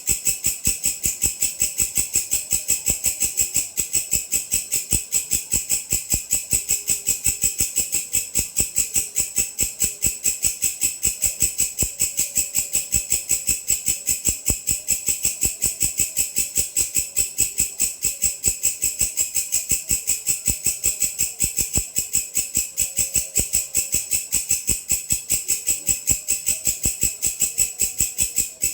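Walang kecek grasshopper calling: a steady train of sharp, dry rattling chirps, about three to four a second, high-pitched and unbroken.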